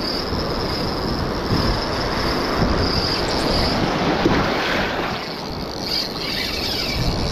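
Surf washing and water sloshing around a wading angler, with wind buffeting the microphone. Under it a thin, steady high buzz of the Shimano Stradic 5000 spinning reel's drag giving line as a hooked fish runs, fading about halfway and returning near the end.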